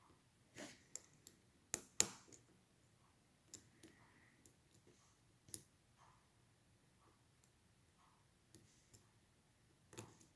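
Small, sharp metallic clicks from a lock pick working the pin tumblers of a Schlage Primus lock cylinder under light tension, coming irregularly, with a couple of louder clicks about two seconds in.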